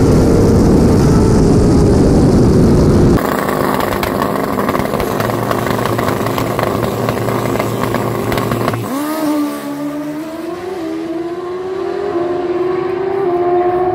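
Motorcycle engine sounds at a drag strip, split by sudden cuts. First comes loud wind and engine noise with a slowly falling pitch. About three seconds in it changes to a steady engine hum, and about nine seconds in to an engine note that rises in pitch in several steps.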